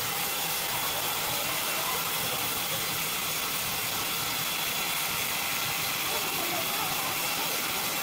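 Horizontal band sawmill running with a steady, even hiss from the band blade and its drive.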